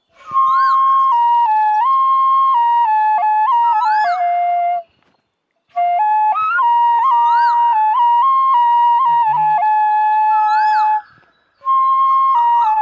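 Bansuri (Indian bamboo flute) playing a slow melody of long held notes with small steps and bends, in three phrases broken by short silences. Rising-and-falling swooping notes recur above the melody.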